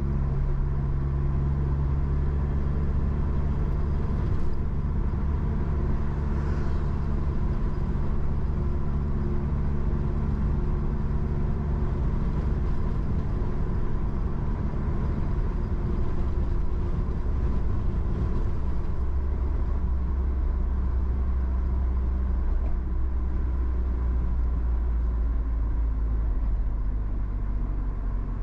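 Suzuki Jimny JB64 on the move: its 658 cc turbocharged three-cylinder engine gives a steady low drone over road noise. The engine pitch shifts slightly about two-thirds of the way through.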